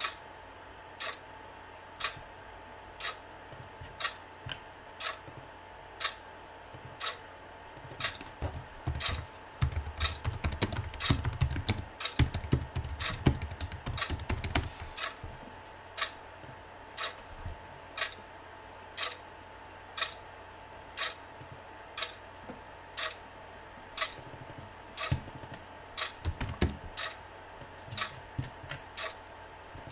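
Computer keyboard typing: a dense run of rapid keystrokes lasting several seconds, and a short cluster of clicks later, over a clock ticking steadily about once a second. A faint steady hum runs underneath.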